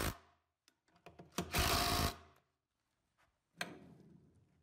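Cordless driver running screws in to mount a caster on its block, in short runs: the end of one run right at the start and another run of under a second about a second and a half in, followed by a single sharp click a couple of seconds later.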